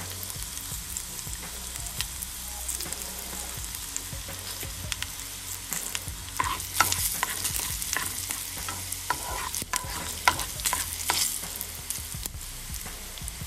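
Hot oil sizzling in a pan as a tadka of mustard seeds, curry leaves, green chilies, turmeric and hing fries, with a spoon stirring through it. Sharp clicks and taps come more often from about six seconds in.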